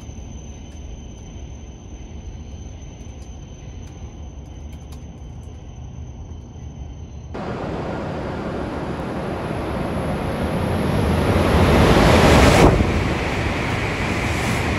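An E7/W7 series Hokuriku Shinkansen train passing through a station non-stop at high speed: a rushing noise that swells for about five seconds, peaks, then drops suddenly to a steady rush as the carriages stream past. Before it, a quieter steady hum with a faint high whine.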